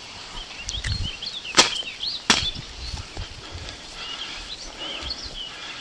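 Two sharp cracks about two-thirds of a second apart, with birds chirping.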